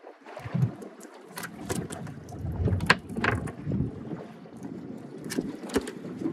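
Wind gusting on the microphone, with a series of sharp clicks and knocks from fishing pliers and hands working a hook free of a small fish.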